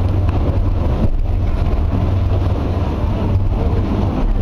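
Boat's engine running steadily, a low drone under an even rush of noise from wind and water.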